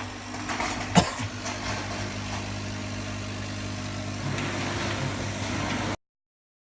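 CNC laser cutting machine running with a steady mechanical hum, with one sharp click about a second in; the hum grows slightly louder past four seconds and cuts off suddenly about six seconds in.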